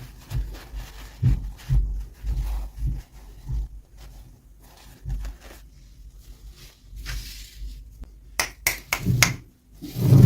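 Hands handling and unboxing small toys: irregular soft knocks and rubbing, with a quick run of sharp clicks about eight and a half seconds in.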